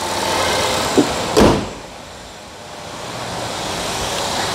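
A 2016 Chevy Equinox idling with its hood up, then the hood slammed shut about a second and a half in with one heavy thud. After the slam the engine sound is muffled and quieter.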